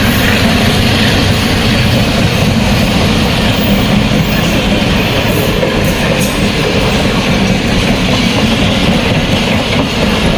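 A train running on the rails close by: a steady, loud rumble and rattle of wheels over track.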